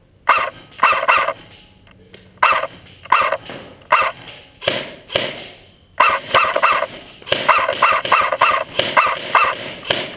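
A dog barking repeatedly and loudly, about fifteen short barks in quick runs with brief pauses between them.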